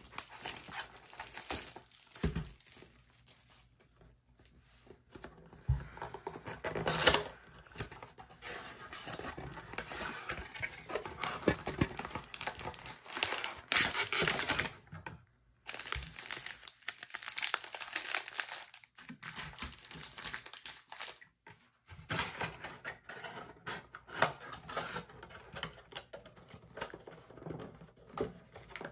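A cardboard trading-card blaster box being torn open and its plastic-wrapped card packs pulled out, with irregular tearing, crinkling and rustling of cardboard and wrappers.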